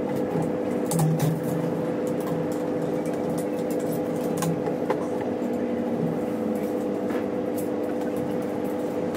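A steady mechanical hum, with a few light clicks and knocks as a BMX rear wheel is handled and fitted into the frame.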